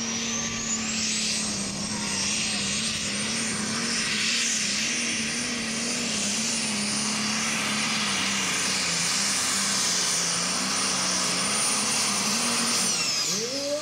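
Turbocharged diesel pulling tractor running flat out on a pull, with a high turbo whistle that climbs in the first second and then holds steady over a wavering engine note. Whistle and engine fall away shortly before the end.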